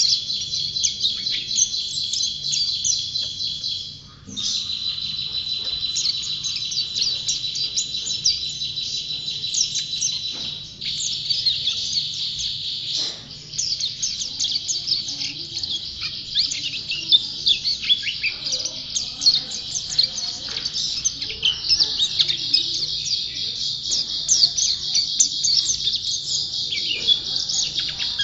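White-eye (pleci) songbird singing a long, rapid, high-pitched twittering song, almost unbroken, with short pauses about four, eleven and thirteen seconds in.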